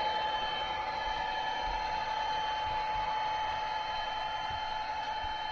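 HO scale model train running on the layout: a steady whine of several held high tones over an even hiss.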